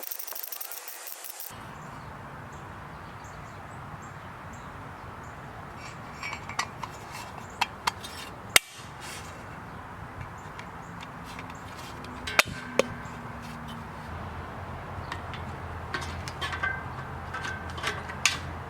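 Scattered metallic clinks and knocks of steel squat-stand parts and bolts being handled and fitted together, over a steady low hum. The knocks come singly and in pairs, sharpest about halfway through, with a small cluster near the end.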